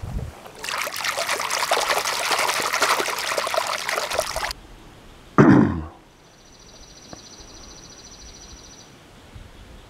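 Hands splashing and sloshing in shallow lake water at the bank for about four seconds. A short, loud sound sliding down in pitch follows about halfway through.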